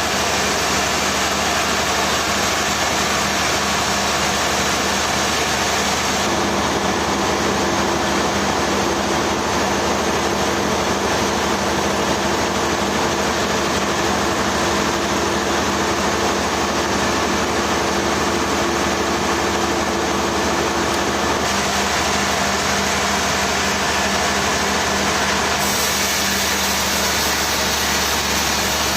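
Sawmill machinery running steadily with a constant engine-like hum. A faint extra tone comes in about six seconds in and drops out around twenty-one seconds.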